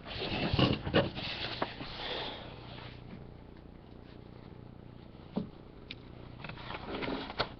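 Short rustling noises and a few sharp clicks close to the microphone, busiest in the first three seconds, then a lone click and some lighter rustling near the end.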